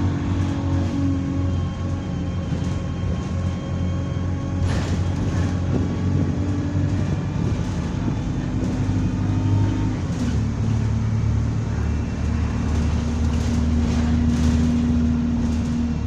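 Diesel engine of a double-decker bus running under way, a steady low drone heard from the upper deck, with its pitch shifting about ten seconds in. The bus has a replacement engine that its owner says sounds like a Euro 3 unit. A brief rattle comes about five seconds in.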